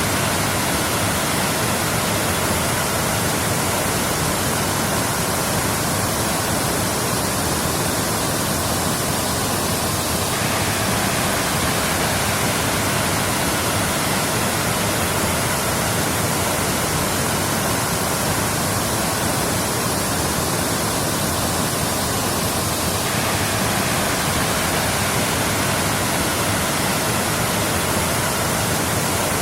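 Waterfall: the steady, even rushing of falling water, unchanging in loudness.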